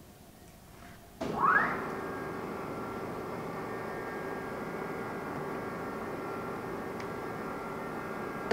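Whacheon WL-520 gap bed engine lathe, with a 10 hp main motor, starting up about a second in: the geared headstock spins up with a quick rising whine. It then runs steadily with an even gear whine.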